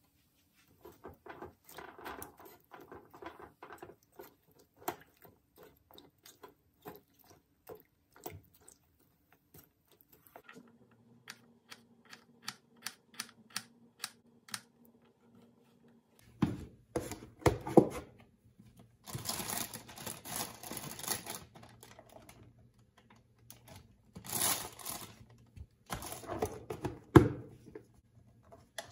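A small knife slicing garlic cloves on a plastic cutting board, a run of sharp taps about two a second. Then, over the last dozen seconds, several louder bursts of crinkling as a plastic bag is handled.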